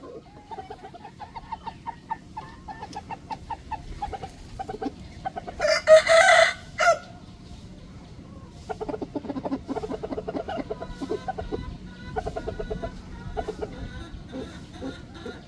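Red jungle fowl clucking in quick runs of short notes, with one short, harsh crow about six seconds in, the loudest sound.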